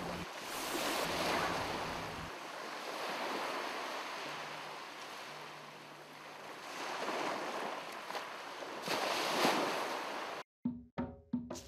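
Ocean surf: waves washing in and drawing back, the rush swelling and fading several times. It cuts off near the end, where the first drum hits of music come in.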